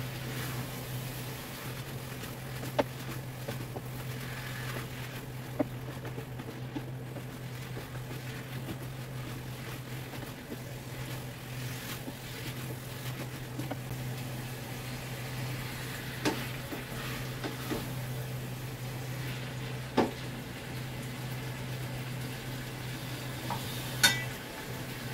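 Wooden spatula stirring food in a pot on a gas stove, with scattered knocks of the spatula against the pot and a sharp metallic clink near the end, over a steady low hum.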